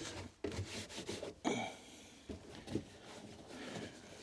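Irregular rubbing and scraping strokes, about one every half second, as lint and fluff are wiped out of the inside of a condenser tumble dryer.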